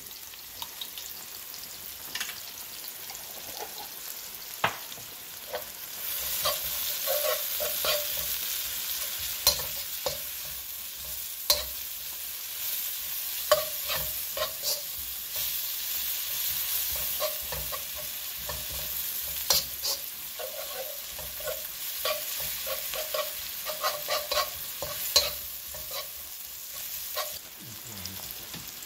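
Onions, ginger and chopped garlic sizzling in oil in a wok, stirred and scraped with a slotted metal spatula that clicks and taps against the pan. The sizzle gets louder about six seconds in and eases off near the end.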